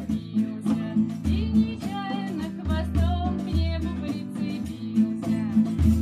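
Acoustic guitar strummed in a steady rhythm, with voices singing along.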